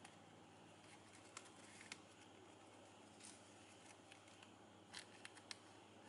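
Faint crackles and rustles of glossy ribbon being threaded through the folds of a ribbon flower and pulled tight, a handful of short sharp crinkles with a small cluster near the end, over a quiet steady room hum.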